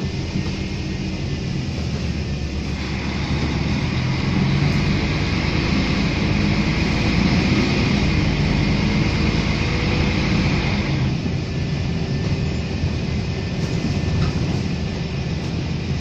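City bus running, heard from inside the cabin near the rear: a steady low engine drone under road and tyre noise. The noise grows louder for several seconds in the middle and eases off again about two-thirds of the way through.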